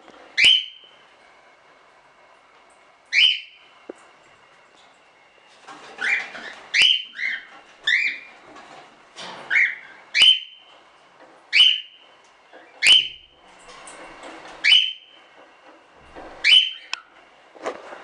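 Cockatiel calling over and over, a loud call every second or two. Each call is a quick downward sweep that settles into a short held whistle, and some have a second, lower note.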